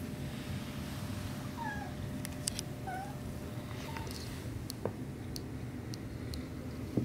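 Very young kittens mewing: three short, thin mews, each dropping in pitch, about one and a half, three and four seconds in. A few faint light ticks fall between them.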